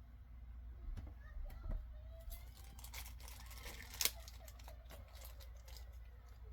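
Packaging being handled and torn open: a run of crinkling, tearing rustles with a sharp click about four seconds in.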